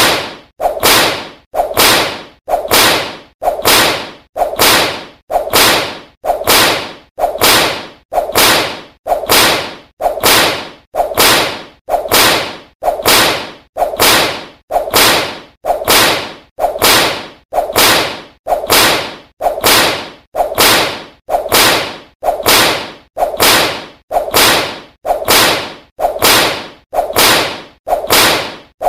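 Whip lashes striking over and over in a steady, even rhythm, about one a second. Each is a sharp crack that fades quickly before the next.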